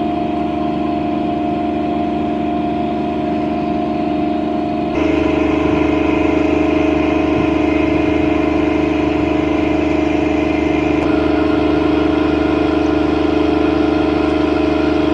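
A steady mechanical hum of several held tones, like an engine running. It steps up in loudness and changes its tones abruptly about five seconds in, and shifts again about eleven seconds in.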